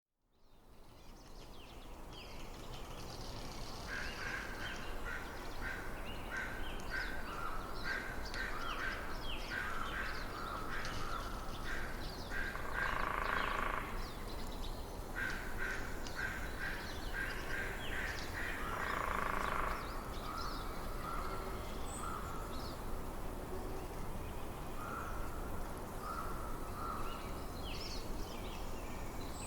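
Outdoor nature ambience of wild animal calls: runs of short calls repeated several times a second, and twice a longer, harsher call, over a steady low background hiss. The sound fades in over the first second.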